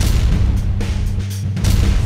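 Intro music with a sustained deep bass drone and two heavy booming hits, one at the start and another about one and a half seconds in.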